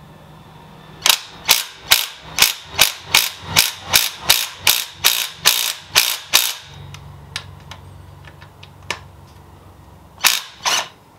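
Socket ratchet clicking in a steady run of about fifteen strokes, two to three a second, loosening the 17 mm oil drain bolt on a Suzuki GS500's oil pan. A low hum follows, then two more sharp clicks near the end.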